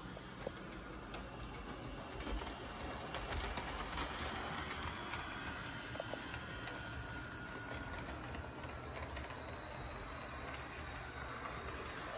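HO scale Athearn Genesis SD80MAC model diesel locomotive running along the layout track: a faint steady whir of its motor and gearing, with a few light clicks from the wheels on the rails.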